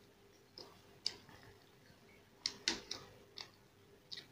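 Sounds of eating crisp masala dosa by hand: a few short, sharp crackles and clicks, scattered, with several close together about halfway through.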